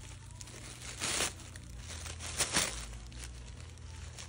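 White tissue paper crinkling in short bursts as a Shih Tzu pushes its head into it and plays with it. The loudest crinkles come about a second in and again around two and a half seconds.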